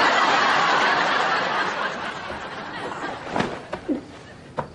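Studio audience laughing, loudest at the start and dying away over about two seconds. A few short knocks follow near the end.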